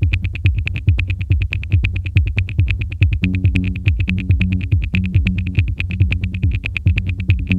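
Electronic synthesizer music with a fast, steady pulse. A sustained bass line comes in about three seconds in.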